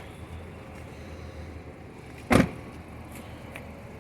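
Chevy Camaro SS's 6.2-litre V8 idling with a steady low hum, and a brief loud thump about two seconds in.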